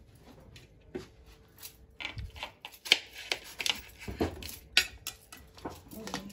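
Scattered light knocks and clinks of kitchen handling: cut onion pieces picked off a plate and the lid taken off a stainless-steel mixer-grinder jar. The knocks come thicker from about two seconds in, the sharpest about three seconds in.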